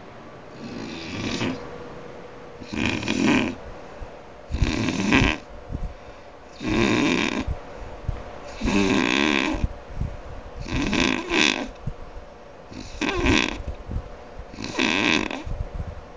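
A person snoring, one snore about every two seconds, eight in all, the first fainter than the rest.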